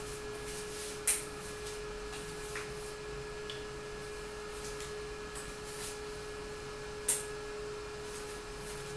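MT-3103 bulb-socket fan heater running, its small fan giving a steady humming tone. Two sharp clicks sound, about a second in and about seven seconds in.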